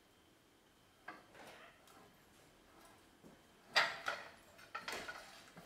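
Light metallic clicks and rattles of hand-fitting a stabilizer link's bolt, washers and bushings, with a few sharper clacks from about four seconds in.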